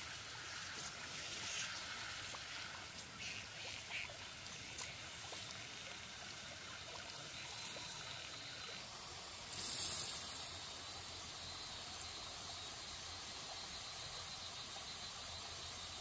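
Shallow stream water trickling steadily, with rustling and scraping of bamboo fence stakes being handled in the first few seconds and a brief louder rustle about ten seconds in.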